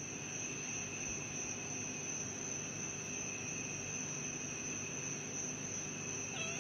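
Steady, high-pitched insect trill, held on one unbroken tone with a thin higher whine above it, over a faint hiss.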